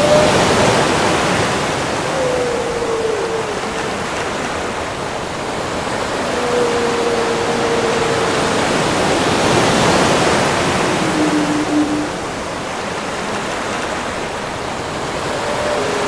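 Ocean surf washing in slow swells, with whale song over it: several long, low tonal calls, each sliding slowly downward in pitch.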